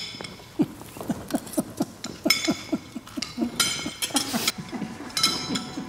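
Knives and forks clinking and scraping on porcelain plates, with a few sharp, ringing clinks, over a fast, even run of soft chewing sounds, about five a second, in the first half.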